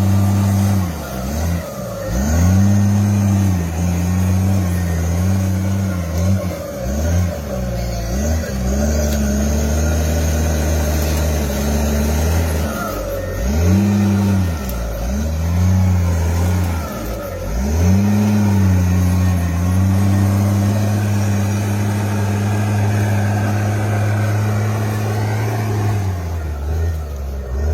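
Bulldozer's diesel engine working, its pitch dipping and recovering several times, then holding steady for the last several seconds.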